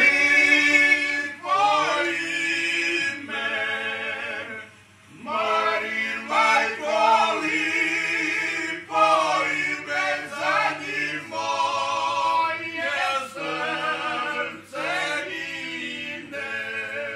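Several men singing a Dalmatian folk song together, unaccompanied, in long held notes with short breaks between phrases.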